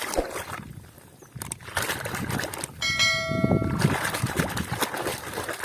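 Water splashing and trickling as muddy toys are rinsed, with a single bell-like metallic ring about three seconds in that fades out within about a second.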